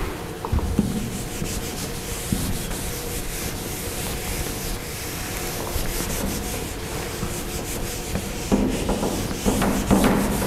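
Whiteboard eraser rubbing across a whiteboard, wiping off marker writing in back-and-forth strokes, with a few louder, rougher strokes near the end.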